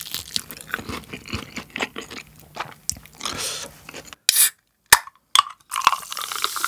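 Crunching and chewing on sauce-coated fried chicken, close to the microphone, for about four seconds. Then a short hiss and a couple of sharp clicks, and a drink is poured from a can into a cup near the end.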